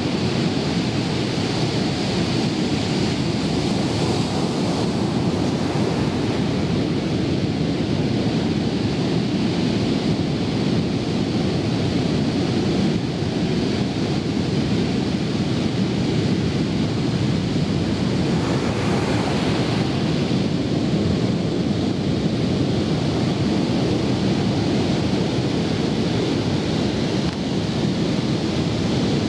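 Steady low rumble of wind buffeting the microphone, mixed with surf breaking on the beach.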